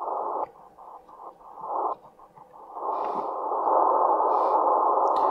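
Tecsun PL-330 shortwave receiver hissing with band noise through its narrow SSB filter as it is tuned across the 20-metre CW band. The hiss drops out and comes back several times as the automatic gain control pumps with each tuning step, then runs steadily. No signals come through, which the operator puts down to its being too early for 20 metres.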